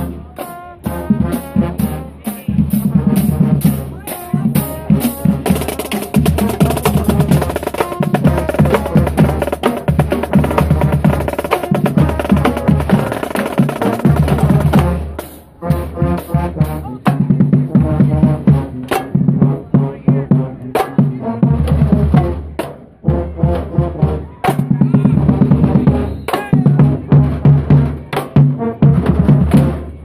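Marching band playing a stand cheer: a drumline of snare drums, bass drums and cymbals drives a fast, rhythmic beat with rolls, while brass (trombones, sousaphones, saxophone) plays over it. The music dips briefly twice before picking up again.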